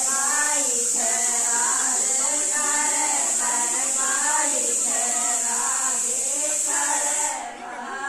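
Group of women singing a sohar, a Bagheli folk song for a child's birth, in drawn-out phrases that rise and fall in pitch. A steady high hiss runs under the singing and cuts off shortly before the end, when the singing turns quieter.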